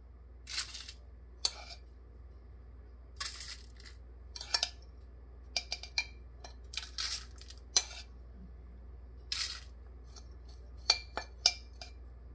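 Metal spoon scraping and clinking against a ceramic dish while scooping graham cracker crumb crust, in short, irregular strokes.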